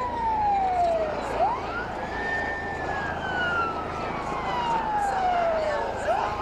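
Police siren wailing. The tone falls, sweeps quickly up about a second and a half in, slides slowly down for about four seconds, then sweeps up again near the end. Beneath it runs the steady noise of a Bell 429 police helicopter in flight.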